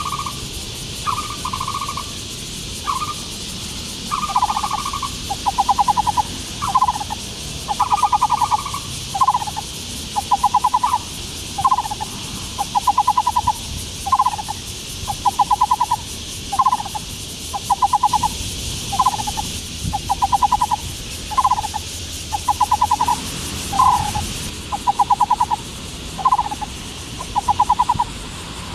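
Taiwan barbet (Black-browed Barbet) calling: short, rapidly pulsed hollow phrases repeated steadily about once every second or so, each set off by a brief rising note.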